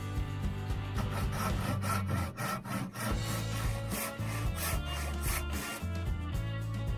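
Panel handsaw cutting through a wooden dowel clamped in a vise, a run of back-and-forth strokes starting about a second in, with guitar music underneath.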